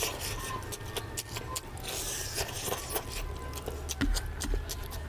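Close-up eating sounds: wet chewing and lip smacks, with fingers squishing oily mutton fat curry and rice on the plate, a quick run of sharp wet clicks throughout.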